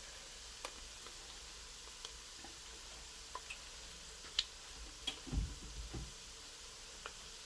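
Scattered light clicks and taps of kitchen utensils and a cooking pot, about six of them spread irregularly, with a soft dull thump a little past halfway.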